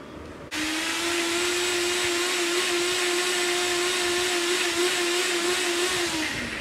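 NutriBullet blender motor running, blending ice, milk and chocolate chips: it switches on suddenly about half a second in, holds a steady whine over a hiss, then winds down in pitch and stops near the end.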